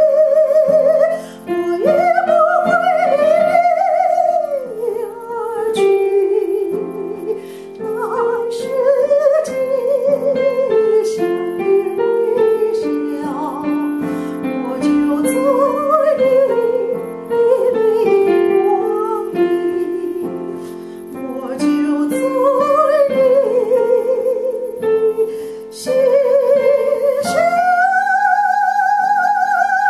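A woman sings a Chinese pop ballad in a bright, open voice over instrumental accompaniment with plucked strings, with vibrato on the long held notes. Near the end she holds a long, higher note. It is a vocal demonstration of singing with a relaxed tongue resting lightly on the lower teeth, which keeps the throat relaxed.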